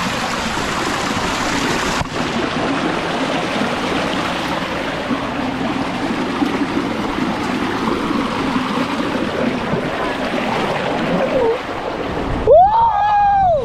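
Steady rush of running water. Near the end comes one short, loud, high yell that rises and falls.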